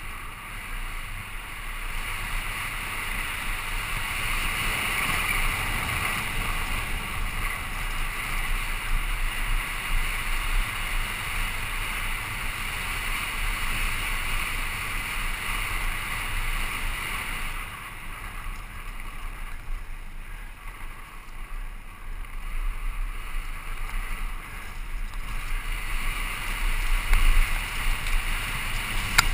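Wind rushing over a helmet camera's microphone, with the rumble and rattle of a Santa Cruz Nomad mountain bike rolling fast down a dirt trail. The rush eases for several seconds past the middle, then builds again.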